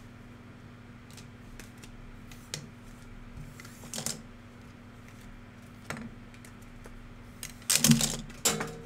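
Scattered light clicks and taps from handling at a desk, with a short cluster of louder clicking and rustling near the end.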